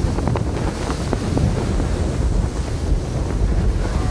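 Strong desert sandstorm wind gusting against the microphone, a loud, unsteady rumble that is heaviest in the low end.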